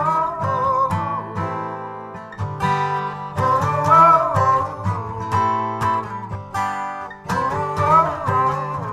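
A rock band playing live, led by a strummed acoustic guitar over a steady beat, with a wavering melody line above it.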